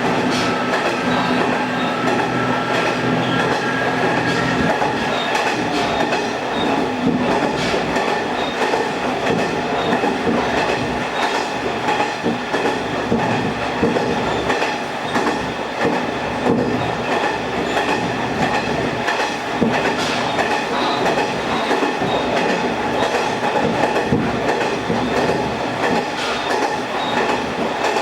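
Diesel railcar running on the Kuma River Railway, heard from on board: a steady rumble of wheels on rail with scattered small clicks. A steady engine tone fades out about five seconds in.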